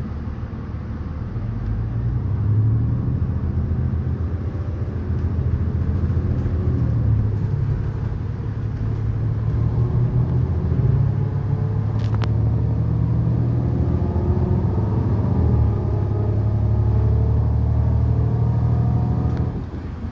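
Inside a 2019 New Flyer XN40 city bus: its Cummins L9N natural-gas engine runs under load as the bus pulls away and drives on, a steady low drone that swells about two seconds in. The level drops suddenly near the end.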